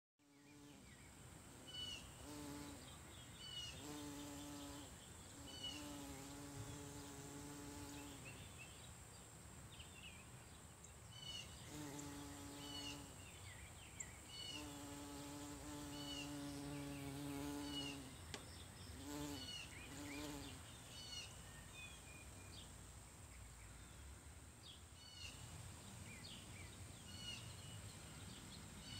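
Bumblebee buzzing in stretches of one to three seconds as it moves over the flowers, a low steady hum that stops and starts. A bird repeats a short high chirp every second or two.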